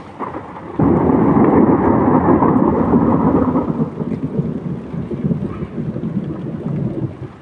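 A thunderclap breaks suddenly about a second in and rolls on as a long, deep rumble that slowly fades over several seconds.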